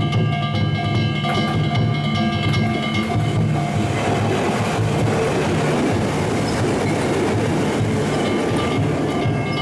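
Kintetsu Minami-Osaka Line train passing over a level crossing, a steady rush of wheel and rail noise from about three and a half seconds in until near the end. Steady ringing tones and low drumming can be heard before the train noise covers them, and again as it dies away.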